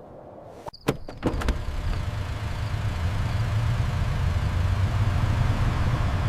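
A few sharp knocks about a second in, then a car engine running with a steady low rumble.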